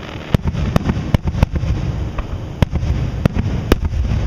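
Aerial fireworks shells bursting: about seven sharp bangs at uneven intervals over a continuous low rumble.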